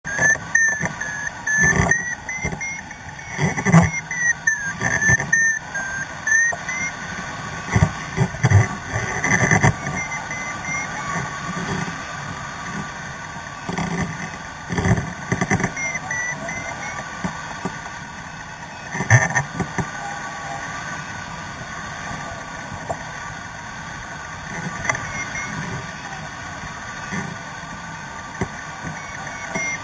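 Hang-glider variometer beeping, its pitch drifting up and down as it signals climb in a thermal. Wind rushes and buffets over the microphone throughout, in strong gusts during the first ten seconds and again around the middle.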